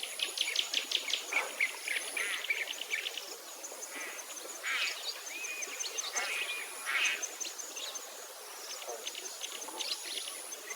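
Many birds chirping and calling at once, with a high, thin insect buzz that comes and goes behind them.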